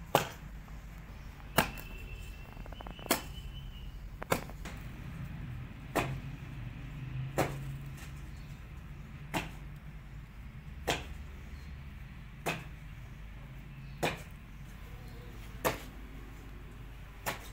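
Sharp ticks repeating about every one and a half seconds, over a low steady hum.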